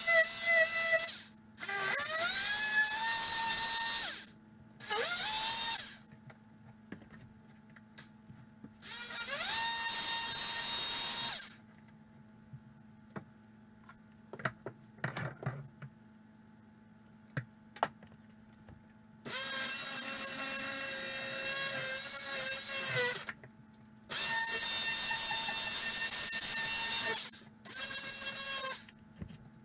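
Corded Ridgid power saw with a fine-tooth blade cutting into drywall in short bursts. About six times the motor spins up with a rising whine, then runs at a steady pitch for one to four seconds before stopping. A few light knocks and taps fall in the gaps, with a longer pause in the middle.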